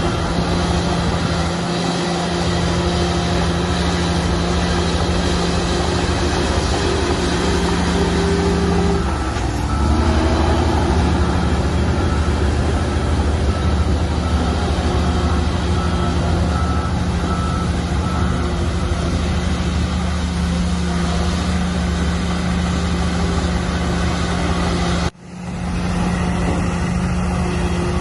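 Shantui bulldozer's diesel engine running steadily; its note shifts about a third of the way in. A reversing alarm beeps for several seconds midway, and the sound drops out for a moment near the end.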